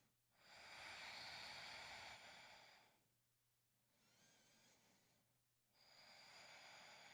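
Faint, slow breathing: three soft breaths of a couple of seconds each, the middle one quieter.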